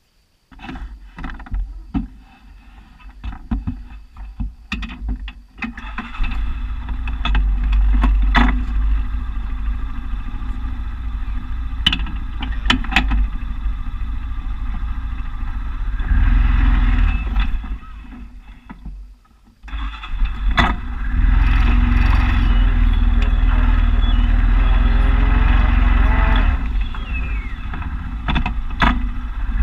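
A vehicle engine starts up about half a second in, with clicks and rattles, and settles into a steady run. It drops away almost to quiet about two-thirds of the way through, then comes back louder and steady as the vehicle moves off.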